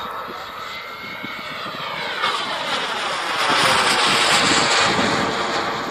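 JetCat P-180 turbine of a BVM Ultra Bandit RC jet making a fly-by: turbine whine and jet exhaust noise grow louder, are loudest about four seconds in, then start to fade as it passes.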